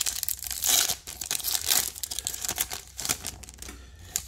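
Foil wrapper of a Topps Chrome baseball card pack being torn open and crinkled by hand, a dense crackling that thins out near the end as the cards come free.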